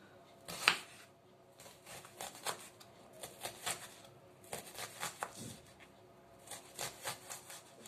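Kitchen knife finely chopping an onion on a wooden cutting board: irregular runs of quick taps of the blade on the board, with one louder knock just under a second in.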